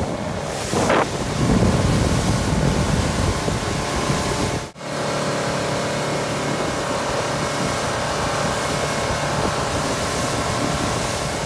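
Outboard-powered fishing boat running at speed: a steady engine hum under rushing water off the hull and wind on the microphone. The sound breaks off for a moment about five seconds in and picks up again, steadier.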